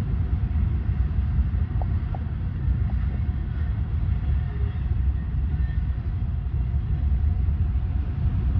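BNSF mixed freight train's cars rolling past, a steady low rumble of wheels on the rails.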